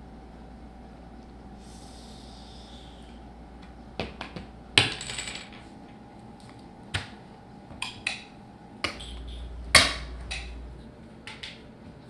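Chess pieces being moved and set down on a board. A run of sharp clicks and knocks begins about four seconds in, with the two loudest at about five and ten seconds in.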